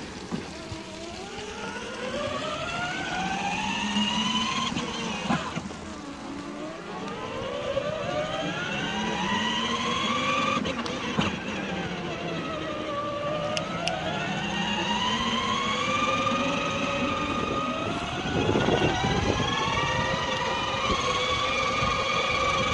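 Electric ride-on toy car's motor and gearbox whining, the pitch rising as it speeds up and falling back as it slows, several times over.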